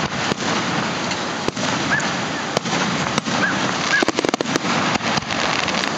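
Aerial fireworks display: separate shell bursts going off every second or so, with a rapid run of crackling pops about four seconds in.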